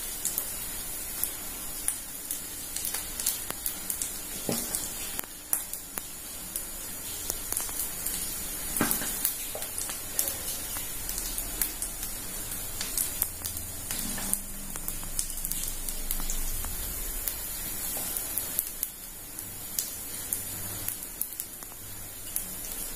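Dosa batter sizzling and crackling in oil on a hot iron dosa griddle, with a few soft taps as a wooden spoon spreads chicken masala over it.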